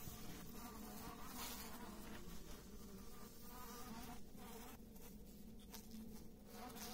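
Honeybee colony in an open hive humming: a faint, steady low drone, with a few faint clicks in the second half.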